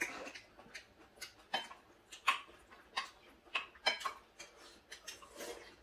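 Eating utensils clicking and tapping against bowls and plates: a dozen or so light, sharp clicks at irregular intervals.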